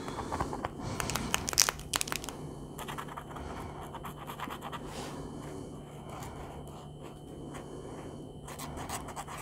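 A few sharp clicks of a paint marker being handled, about a second in, then its felt nib scratching and scraping across paper as a white acrylic swatch is laid down.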